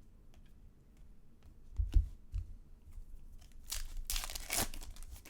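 Trading cards and their packaging being handled: a dull thump about two seconds in, the loudest sound, then a second or so of crinkling rustle, with faint clicks of cards in between.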